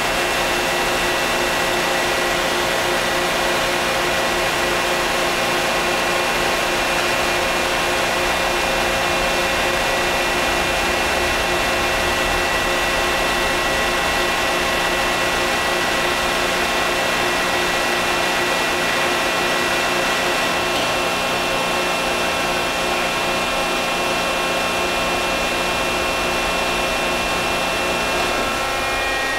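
Hydraulic power unit of a 1,018-ton up-acting hydraulic press running steadily as the press closes: a continuous mechanical drone with several held tones. One tone drops out about two-thirds of the way through and the pitch pattern shifts shortly before the end.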